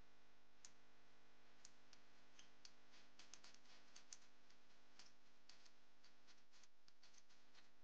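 Faint, irregular clicks and ticks of hand tools at an ignition coil on the engine, as its hold-down bolt is screwed back in; a small cluster of quicker clicks comes about three to four seconds in.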